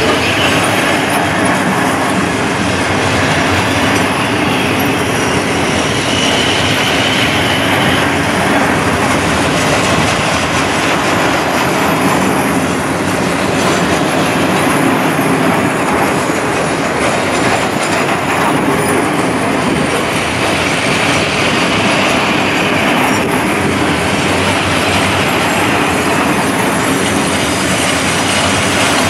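Loaded container flat wagons of a long freight train rolling steadily past at close range: continuous wheel-on-rail rumble and clatter, with a faint high wheel squeal about six to eight seconds in.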